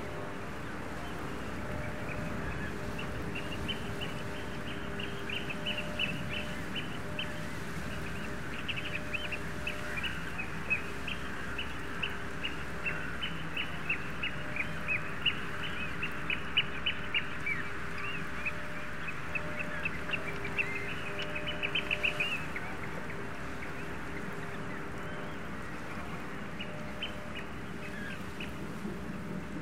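A flock of birds calling, many short rapid calls overlapping, over a low steady hum. The calls thin out after about 22 seconds, with only a few near the end.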